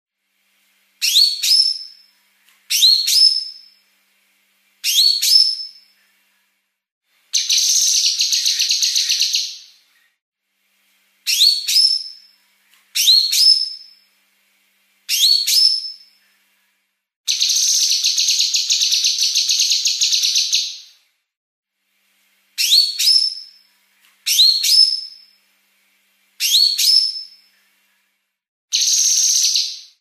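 Female blue-masked leafbird (cucak kinoi) calling in fast, closely packed phrases. Short rising whistled notes about a second long alternate with longer dense, rattling 'besetan' bursts of two to three and a half seconds, with silent gaps between phrases.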